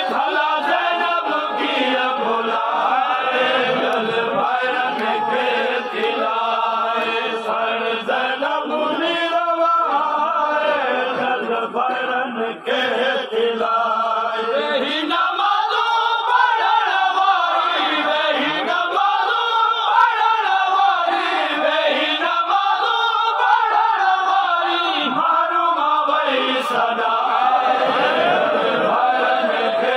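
A man's voice chanting a Shia mourning recitation in long melodic phrases that rise and fall every few seconds, without pause.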